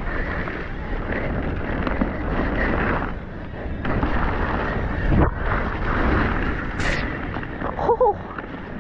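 Wind rushing over the camera microphone and mountain bike tyres running fast on a dirt trail, with the bike rattling over rough ground. A heavy thud comes about five seconds in, and a short pitched sound near the end.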